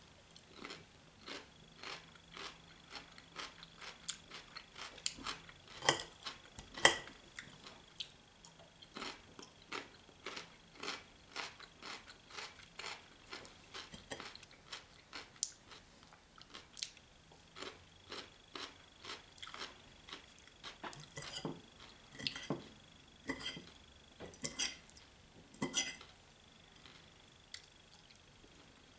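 A person chewing and biting food close to the microphone, with short, crisp mouth clicks about twice a second and a couple of louder bites or clinks about six and seven seconds in.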